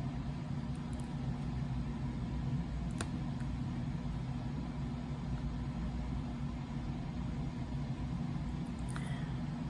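Steady low machine hum, with a single sharp click about three seconds in.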